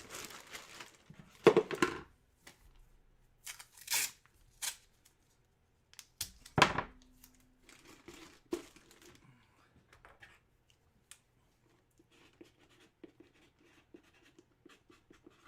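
Packaging being handled and torn: a few short, sharp rips and rustles, the loudest about six and a half seconds in, then fainter rustling.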